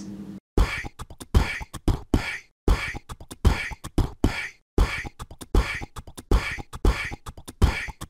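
Vocal beatbox loop of low kick thumps and breathy, hissing snare hits in a steady rhythm. The pattern repeats about every two seconds and starts about half a second in.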